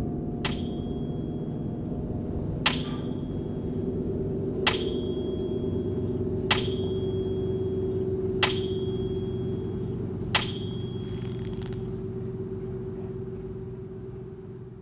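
Water dripping from a kitchen faucet: six sharp plinks about two seconds apart, each with a short high ring. A low steady drone runs beneath and fades out near the end.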